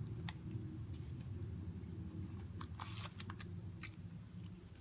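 Scattered small clicks and crinkles of packaging being handled, with a brief rustle about three seconds in, over a steady low hum.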